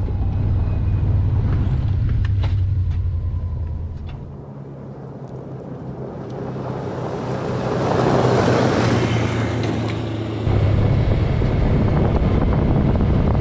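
UTV side-by-side running along a gravel road with a steady low engine drone. The drone falls away for a few seconds, then a broad rush of engine and tyres on gravel swells and fades as the vehicle passes close. The steady drone cuts back in about ten seconds in.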